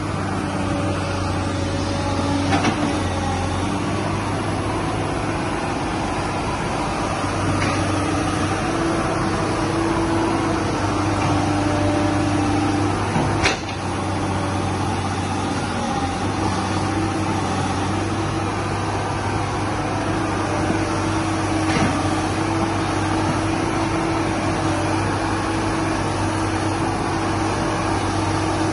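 Hydraulic excavator's diesel engine running steadily, with a tone that shifts in pitch and level as the hydraulics are worked. A few sharp knocks come through, the loudest about halfway.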